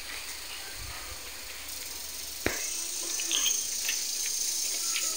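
Steady high hiss with one sharp click about halfway through, followed by a few light clicks and taps.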